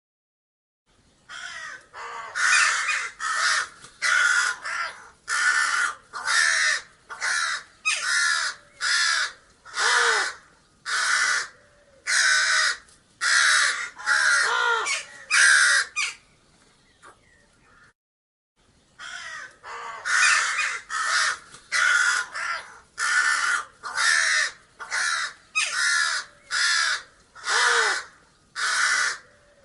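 Crows cawing: a long run of harsh caws, about one or two a second, breaking off for a couple of seconds past the middle, then starting up again.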